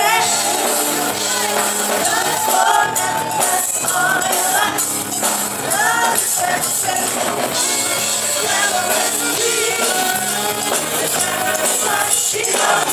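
Live band music with singing over dense percussion and bright cymbal shimmer.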